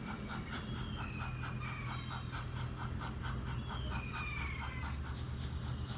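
Model steam locomotive's chuffing, a steady beat of about five chuffs a second over a low running hum, with a few brief high squeals.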